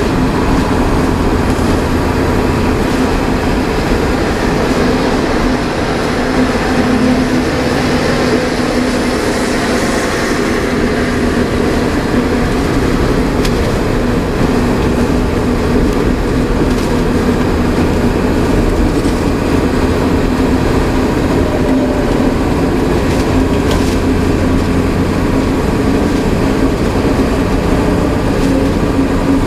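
Inside the cab of a VW Worker 15-180 truck cruising at highway speed: the diesel engine runs steadily under a constant rush of tyre and road noise.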